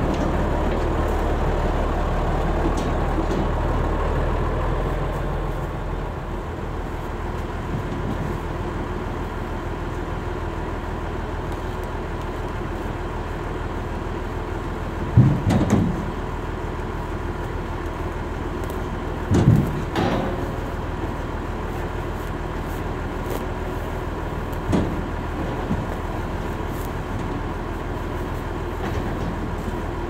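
Tractor engine running steadily, its low hum dropping off about five seconds in while a steady rumble carries on. A few short, dull knocks come about halfway through, again a few seconds later, and once more near the end.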